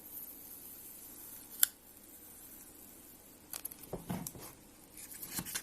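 Fingers handling a Zippo lighter and peeling a sticker off it: small clicks and rustles, with one sharp click about one and a half seconds in and a cluster of faint scratchy clicks near the end.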